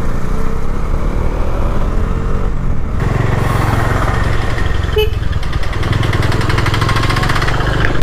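Bajaj Dominar 400's single-cylinder engine running on the road, its pitch rising in the first couple of seconds and getting louder about three seconds in, with a short click about five seconds in.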